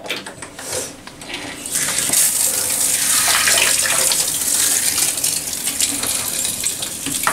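Bathtub tap water running steadily into the tub, coming on about two seconds in after a few knocks of handling.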